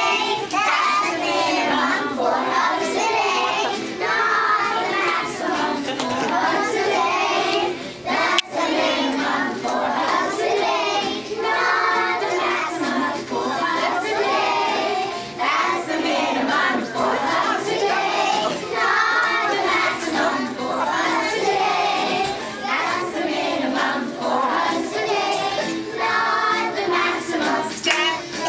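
Group of young children singing together in unison, with one sharp knock about eight seconds in.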